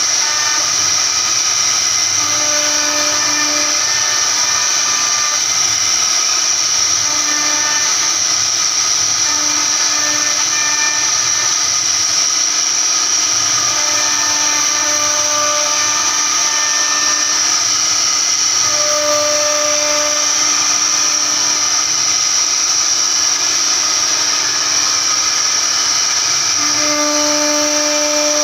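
CNC router spindle running with a steady high whine as its bit carves a wooden panel. Lower tones come and go every few seconds as the cut moves along.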